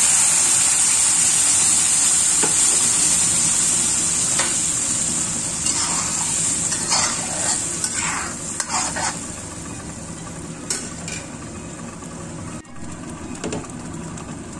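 Blended chili spice paste frying in hot oil in a wok: a loud sizzle that dies down over the first ten seconds. A steel spatula scrapes and stirs the paste against the wok several times in the middle.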